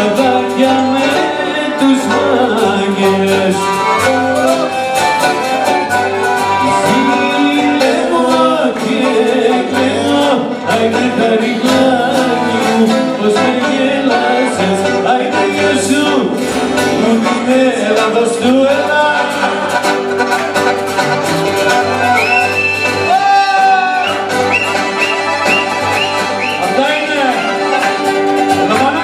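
Traditional Greek folk music played live by a small band: violin, laouto, accordion and acoustic guitar together, with a man singing into a microphone.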